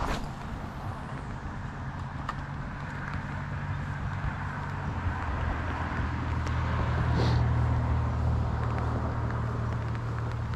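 Low, steady engine hum of a motor vehicle, growing louder to a peak about eight seconds in and then easing, with a few faint clicks.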